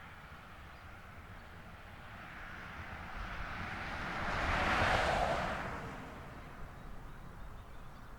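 A vehicle driving past: an even hiss of road noise that swells to a peak about five seconds in and then fades away.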